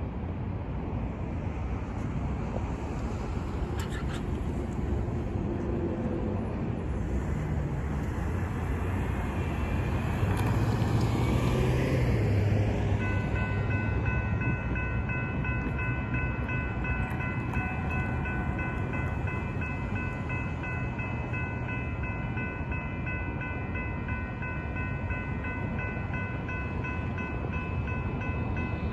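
Railroad grade-crossing warning bell starting about 13 seconds in and ringing steadily to warn of an approaching train. Before it there is only steady outdoor background noise, with a louder swell just before the bell starts.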